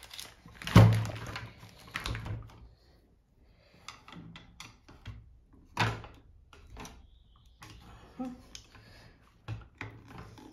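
Irregular knocks, clunks and clicks of plastic and metal parts as an overlock sewing machine's housing and motor are handled and taken apart. The loudest knock comes about a second in, another near six seconds.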